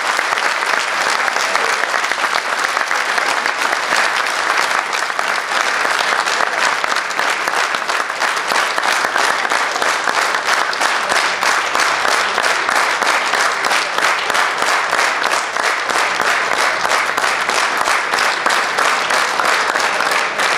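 Audience applauding: dense, steady clapping that carries on without a break.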